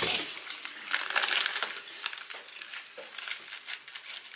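Clear plastic sheet crinkling and rustling as it is folded over a dough round and pressed down by hand. It is loudest in the first second and a half, then lighter, scattered crackles.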